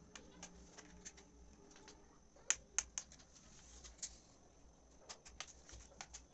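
Small, irregular clicks and ticks of a screwdriver working the screws out of a laptop's plastic back panel, with two sharper clicks about two and a half seconds in.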